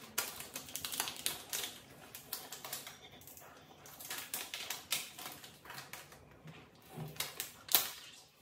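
A metal spoon clicking and scraping against a small steel cup, a quick irregular run of light clicks, with one louder click near the end.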